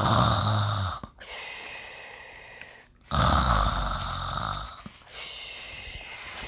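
A person imitating loud snoring, twice: each time a rasping, rattling inhale followed by a long hissing exhale.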